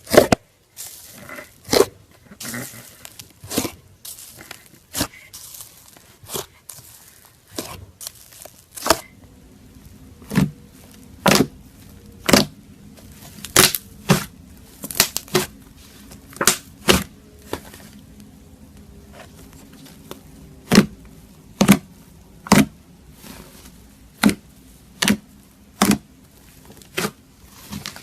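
Slime being pressed and worked by hand, giving off sharp clicking pops as trapped air bursts. The pops come about once a second at an uneven pace.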